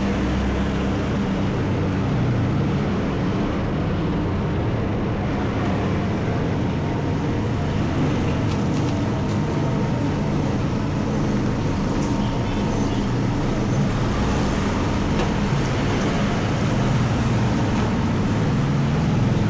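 Steady road traffic noise with a continuous low rumble.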